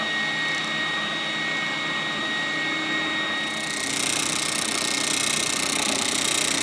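Triton oscillating spindle sander running steadily with a whine; about three and a half seconds in, a louder hiss joins it.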